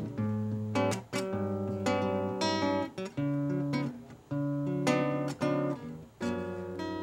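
Acoustic guitar strumming chords, a new chord struck every second or so, in an instrumental passage between sung lines of a Brazilian popular song.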